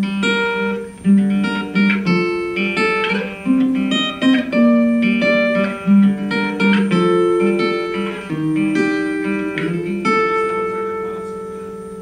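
Acoustic guitar picking a melodic run of single notes and chords, each plucked note starting sharply and ringing on. Near the end a last chord is left to ring out and fade.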